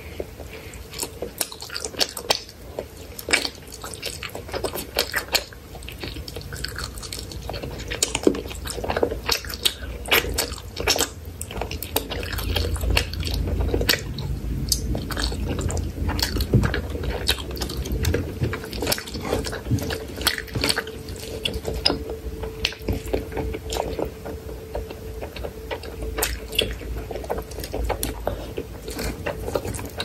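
Close-miked wet chewing and lip-smacking of a mouthful of rice and chicken curry eaten by hand, with many short, sharp, wet mouth clicks.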